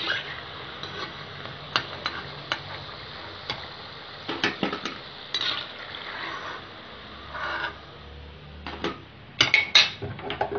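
A metal spoon scrapes and clinks against a metal kadai as fried ulundu vadai are lifted out of hot oil, with the oil sizzling underneath. A quick run of louder clinks comes near the end.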